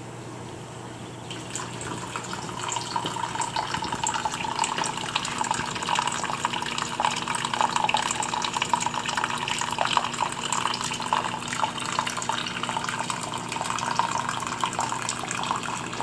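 Water pouring from an inlet pipe onto a stream table's sediment bed and running down a curved channel cut into wet sand and gravel: steady splashing and trickling, which starts about a second and a half in.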